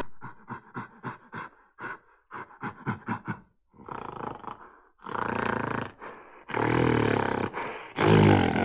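Lion roaring: a quick run of short grunts, about three a second, then a few longer, louder roars, the loudest near the end.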